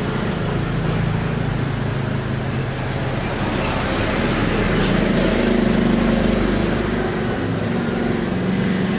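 Steady road-traffic engine noise: a continuous low hum that moves higher in pitch about five seconds in.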